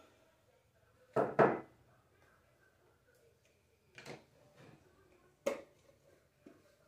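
Handling noises: a quick double knock about a second in, another knock a few seconds later and a sharper one soon after, with small taps near the end, like objects being picked up and set down on a hard surface.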